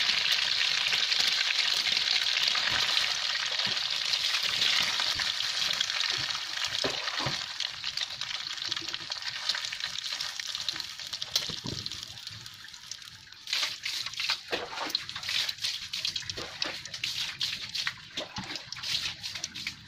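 Egg batter frying in hot oil in a wok: a steady sizzle that slowly dies down, turning to scattered crackling and popping for the last several seconds.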